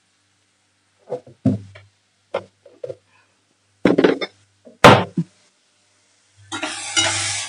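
A few scattered knocks and clinks of kitchen utensils, the sharpest a little before the five-second mark. About six and a half seconds in, a steady sizzle of onion and tomato frying in oil in a kadai sets in.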